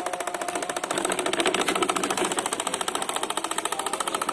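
Small engine of a miniature corn-sheller model running with a fast, even rhythm of pulses as the model drives along; it gets a little louder about a second in.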